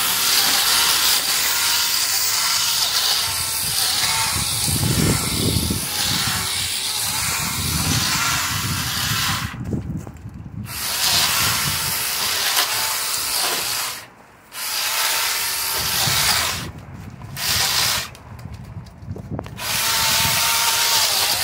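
Handheld electric mini chainsaw running as its chain cuts through ivy stems and vines. A first run of about nine seconds, then shorter runs with brief stops in between.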